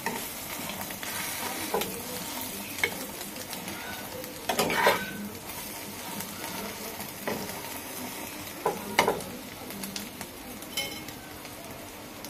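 Egg frying in oil in a nonstick pan, sizzling steadily, while a metal spatula scrapes and knocks against the pan several times. The spatula is loudest just before five seconds in and again around nine seconds.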